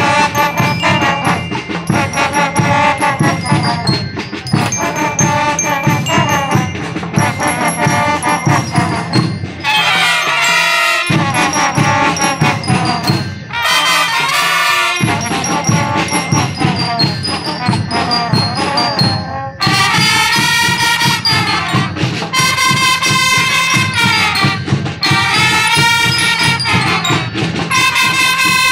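Student brass band playing a tune, brass carrying the melody over a steady drum beat. Twice near the middle the low brass and drums drop away for a moment before the full band comes back in.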